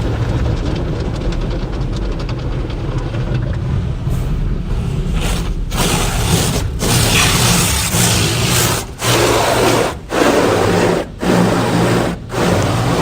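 Car wash machinery running with a steady low hum. From about five seconds in, a loud spray of water joins it and breaks off briefly about once a second.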